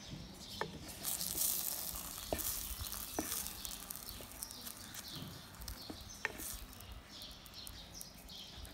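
Egg and shredded cabbage and carrot sizzling in a nonstick electric pan, with a few light knocks of a wooden spatula against the pan. The sizzle is loudest at about a second in.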